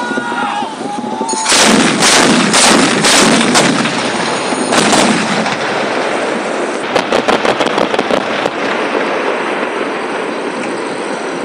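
Towed anti-aircraft guns firing in rapid volleys, with heavy shots coming about two or three a second for a few seconds. Later there is a quicker, lighter run of sharp cracks.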